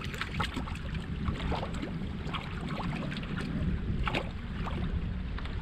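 Choppy water lapping and splashing against the bow of a canoe, in many small irregular splashes, over a steady low rumble of wind on the microphone.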